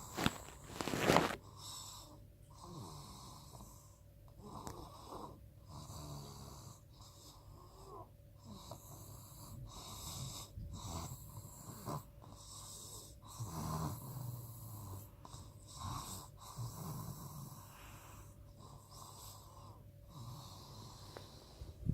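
Soft snoring, a low rasping breath every two to three seconds, not really loud. A sharp noise about a second in is the loudest sound.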